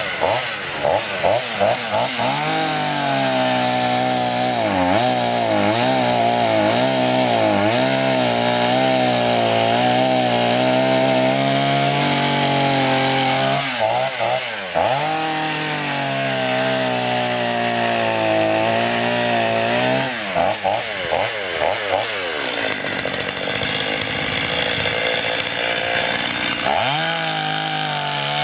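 Stihl two-stroke chainsaw running at high revs while cutting a water oak log; the engine pitch sags and recovers several times as the chain takes the load and eases off. It pulls through the wood well without bogging down.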